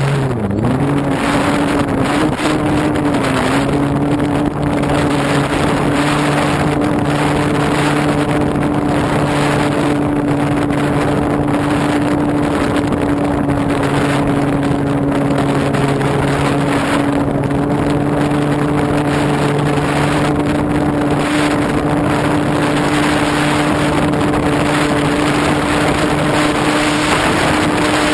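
Model airplane motor and propeller running with a steady drone, heard from a camera mounted on the plane, with wind rushing over the microphone. The pitch sags briefly about a second in, then holds steady. The plane is circling and struggling to gain altitude, which the uploader puts down to too little power or a bad centre of gravity.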